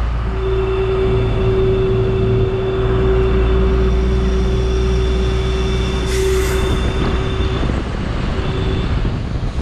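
Truck running, heard from inside the cab: a steady low engine rumble with a steady whine held for about seven seconds, and a brief hiss about six seconds in.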